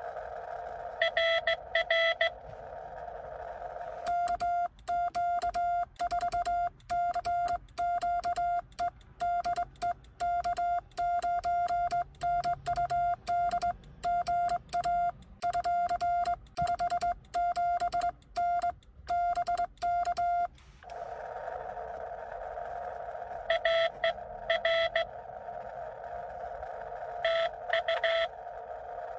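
Morse code (CW) from a Xiegu X6100 transceiver: a strong, steady-pitched sidetone keyed on and off by hand on a home-made cootie sideswiper key, with sharp clicks at each keying, the operator sending. Before and after the sending, the radio's receiver hiss carries short, weaker bursts of another station's Morse.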